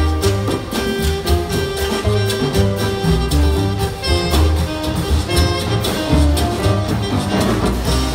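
A school big band playing jazz live, with a saxophone taking the lead line over double bass, drums and piano.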